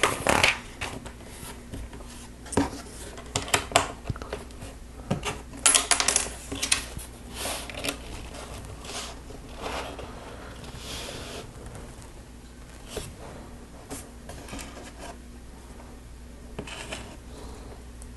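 Small plastic Lego pieces clicking and clattering as they are handled and snapped into place. The clicks come thick and fast in the first half and grow sparser later.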